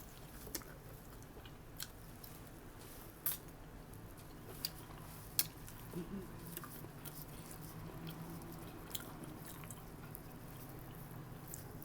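A person chewing and biting food close to the microphone, with irregular sharp mouth clicks and smacks, the loudest about five seconds in.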